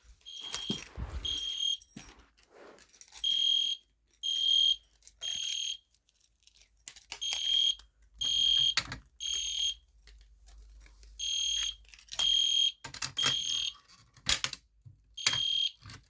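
EST Genesis fire alarm horn strobe sounding the temporal-3 evacuation pattern, with the system in alarm: three half-second beeps, a pause, then three more, repeating. A few brief knocks come in between.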